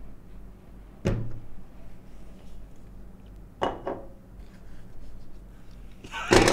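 Parts of a video light kit (reflector, light head, bracket) being lifted out of a padded carrying case and set down on a desk: two sharp knocks about a second and three and a half seconds in, with small handling noises between, then a louder burst of noise near the end.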